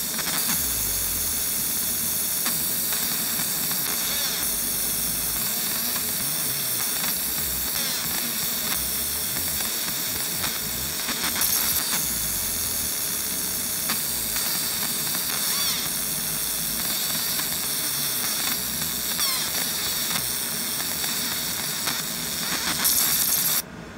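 Galvo laser engraver marking a metal plate in a single hatch-fill pass: a steady high-pitched hiss with faint whining tones that cuts off abruptly near the end as the pass finishes.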